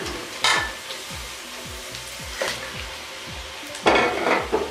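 Onion, tomato and spice masala sizzling in hot oil in a wok as it is stirred, with short louder bursts of sizzle about half a second in, at two and a half seconds, and the loudest near the end.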